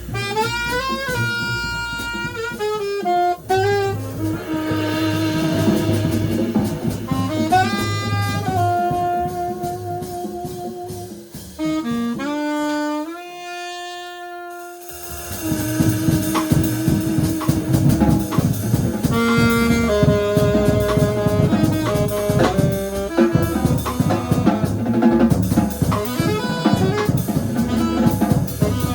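Jazz trio: an alto saxophone plays the melody over drum kit and bass. About twelve seconds in, the drums and bass drop out while the sax holds a long note alone, and the full band comes back in a few seconds later.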